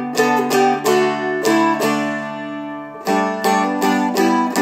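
Seagull Merlin, a four-string dulcimer-style fretted instrument, played with a flatpick: a line of picked melody notes over ringing chord strums, changing chord about three seconds in.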